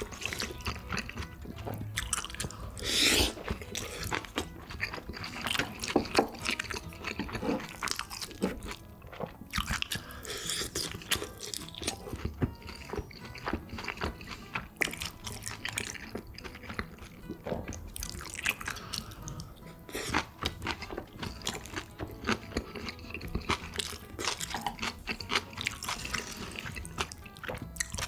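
Close-miked eating sounds: steady chewing and crunching of food, with many small sharp clicks and wet mouth noises.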